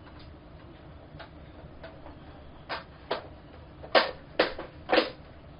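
Curved white plastic diffuser panels of an 18-inch Neewer ring light clicking and knocking as they are handled and fitted onto the ring: faint taps at first, then five sharp plastic clacks in the second half, about half a second apart.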